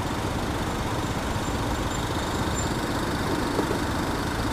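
Motor scooter engine running steadily.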